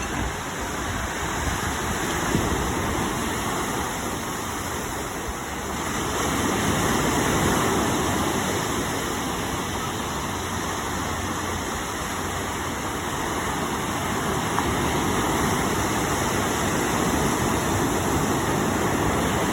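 Steady rushing noise of wind and water, growing a little louder about six seconds in.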